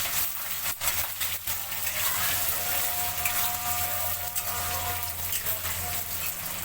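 Food sizzling in hot oil in a cooking pan, a steady frying hiss, with a low hum underneath.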